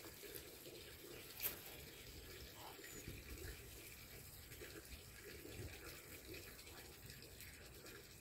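Near silence: a faint trickle of water from the small irrigation ditch, with one small click about one and a half seconds in.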